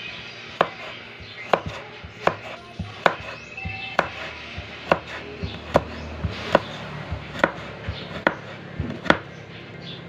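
Kitchen knife slicing carrots on a wooden cutting board. The blade strikes the board a little more than once a second in an even rhythm, with lighter taps between.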